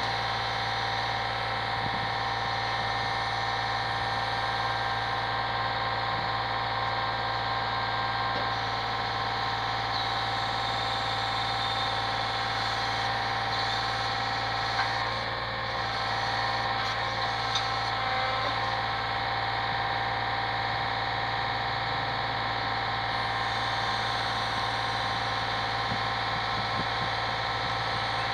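A brick lorry's diesel engine runs steadily, driving the hydraulics of its truck-mounted crane, a continuous drone with a whine held on several tones. There are a couple of faint knocks about halfway through as the crane's brick grab works.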